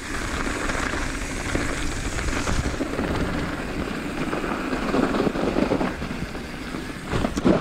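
Mountain bike descending a dirt singletrack: steady wind rush on the camera microphone mixed with tyre noise over the dirt, with a few sharper knocks from bumps near the end.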